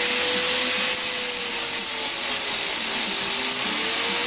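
Handheld electric power tool running steadily with a motor whine. The pitch dips about three and a half seconds in and comes back up, as when the tool is pressed into the work.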